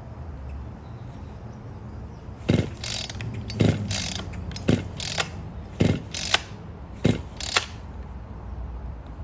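Recoil pull-starter of a Black Max 20-inch chainsaw yanked five times, about once a second. Each pull gives a short whir and rattle of the cord and starter, and the engine does not catch.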